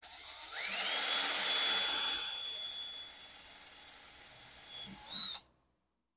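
Cordless drill with an eighth-inch bit drilling a screw hole into a pole. The motor winds up to a steady high whine about half a second in. It runs quieter after about two and a half seconds, revs briefly just before the end, and stops.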